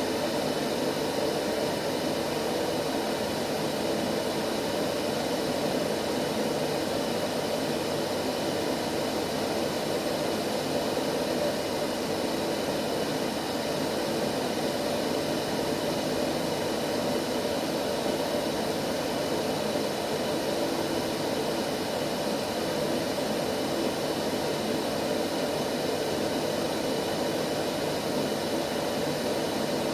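Steady white noise for lulling a baby to sleep: an even, unchanging rushing hiss, strongest in the lower middle range, with a few faint steady tones in it.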